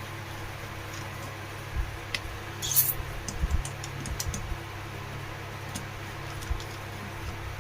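Screws and a screwdriver being worked into a table fan's motor mounting: scattered small clicks and taps, with a short scraping hiss about three seconds in, over a steady low hum.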